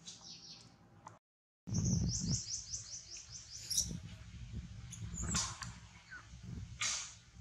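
A baby monkey making high-pitched calls: a quick run of short falling chirps, then two louder squeals, over low handling rumble. The sound cuts out briefly about a second in.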